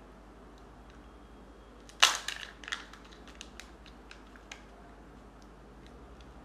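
Plastic Kinder Joy egg snapped open: one loud sharp crack about two seconds in, followed by a couple of seconds of smaller plastic clicks and crackles as the halves are handled.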